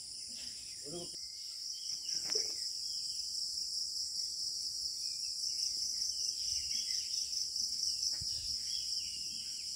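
Steady, high-pitched chorus of insects shrilling with a fast, even pulse, with a couple of faint brief calls underneath.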